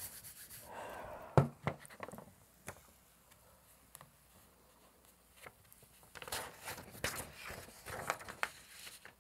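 Round hand baren rubbing over printing paper laid on an inked gel plate, then a single sharp knock about a second and a half in and a few light taps. Near the end, paper rustles as the printed sheet is peeled off the plate and handled.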